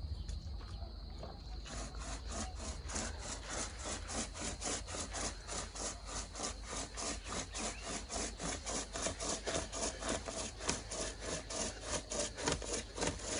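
A chainsaw chain used as a two-handled hand saw, pulled back and forth through a thick branch, its teeth rasping through the wood. It starts just under two seconds in, with rapid, even strokes at about four a second.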